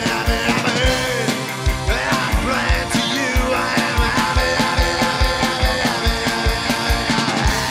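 Rock song with sung vocals over a steady drum beat.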